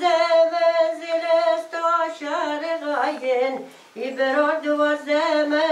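A woman's voice singing a slow melody without accompaniment, with long held, wavering notes and a short break about four seconds in before the singing resumes.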